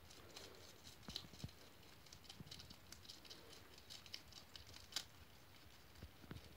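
Guinea pig chewing a green leaf: faint, quick, irregular crunching clicks, with one louder click about five seconds in.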